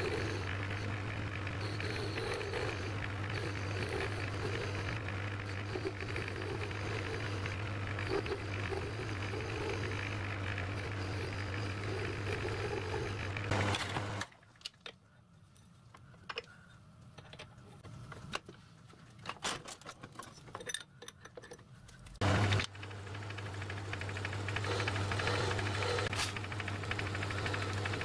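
Metal-turning lathe running with a steady motor hum while a tool cuts a small metal part held in its chuck. About halfway through the lathe stops for a much quieter stretch of small clicks and scrapes while a 4 BA thread is tapped. Near the end a brief loud knock, then the lathe starts again and runs back up to its steady hum.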